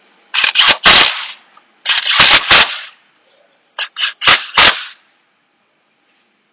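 A handheld power tool running small transmission bolts down in short rattling bursts: two longer runs, then a few quick blips as the bolts are gently snugged so they don't strip.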